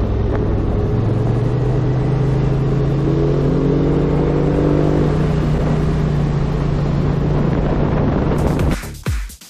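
Motor scooter engine running at a steady cruising speed, its note rising slightly about a second in. Near the end it cuts to electronic dance music with a steady beat.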